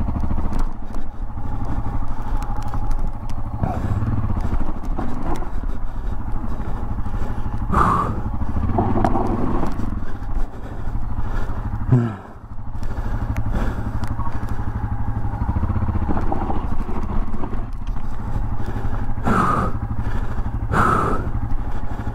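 Yamaha XT600E's single-cylinder four-stroke engine idling steadily while the bike stands stopped on a loose, rocky climb. A few short knocks and scrapes break in now and then.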